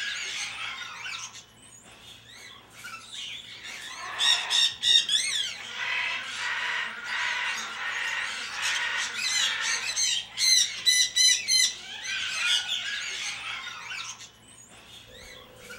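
Parrots squawking and chirping, many calls overlapping, with bursts of rapid, high, warbling repeated calls about four seconds in and again around ten seconds in.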